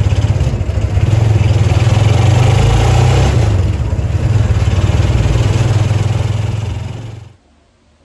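Engine of an open-sided commuter vehicle running steadily under way, with road noise, heard from inside the passenger compartment. It cuts off suddenly near the end.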